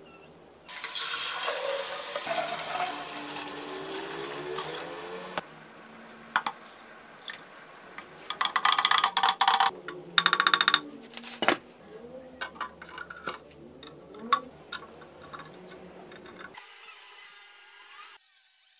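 Water pouring into a glass tank for about five seconds, its pitch rising as it fills. Then come scattered clinks, taps and stirring in the water, with a rapid run of clicks near the middle, as an electrolysis bath for rust removal is set up.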